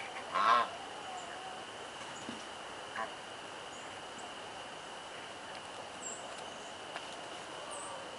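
A farmyard bird gives one short, loud call about half a second in. A steady high-pitched whine runs underneath, with a few faint high chirps later on.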